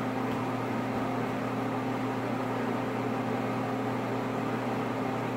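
Steady low electrical hum with an even hiss, with no other sound standing out.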